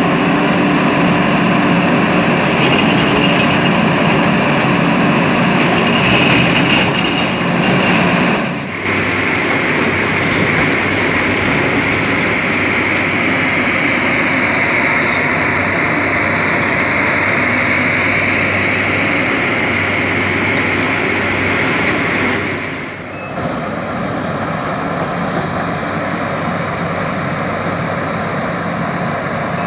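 Sumitomo SH350LHD excavator's diesel engine running steadily under digging load, with a steady high whine over the engine note. The sound dips briefly twice.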